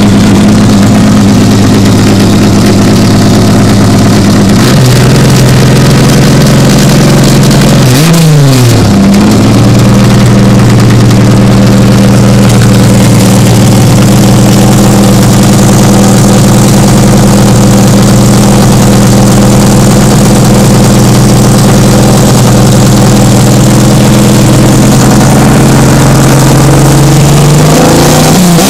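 Ford Falcon engine running, heard close at the tailpipe and very loud. It idles, steps up to a steady raised speed about five seconds in, is blipped once quickly a few seconds later, holds at the raised speed, and is revved again near the end.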